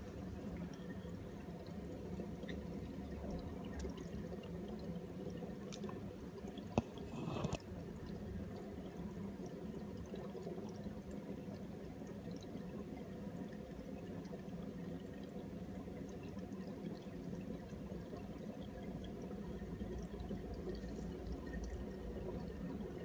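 Steady pouring and dripping of aquarium water circulation. About seven seconds in there is a single sharp click, followed by a brief rush of water.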